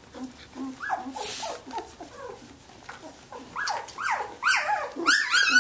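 Seventeen-day-old Samoyed puppies squealing and whimpering as they nurse: a string of short, high, falling squeaks that come faster and louder in the last two seconds.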